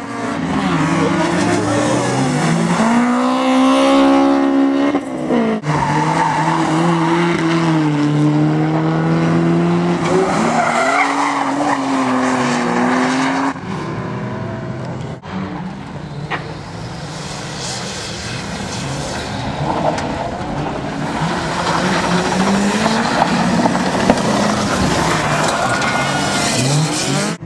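Rally and drift cars being driven hard: engines revving up and down through gear changes, with tyres squealing as the cars slide through corners. The sound changes abruptly a few times as one car gives way to another.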